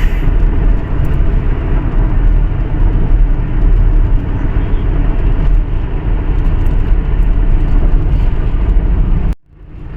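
Steady, loud rumble of a moving car: road and wind noise, deepest at the low end. It drops out abruptly about nine seconds in and fades back up just before the end.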